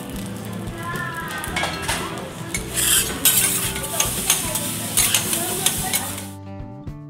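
Garlic fried rice (chahan) sizzling on a steel teppanyaki griddle while metal spatulas scrape and tap through it, the sizzle growing louder around three seconds in. About six seconds in it cuts off sharply to guitar music.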